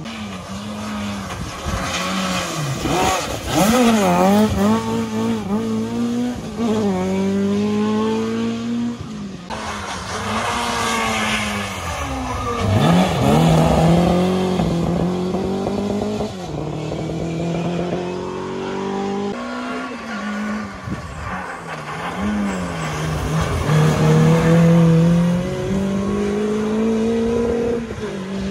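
Road rally cars accelerating one after another through a junction, each engine revving up and dropping back at the gear changes.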